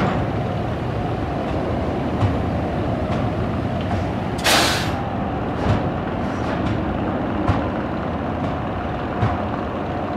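Mine train roller coaster rolling along its track: a steady rumble with irregular clacks from the wheels. About four and a half seconds in comes one short, sharp hiss of air.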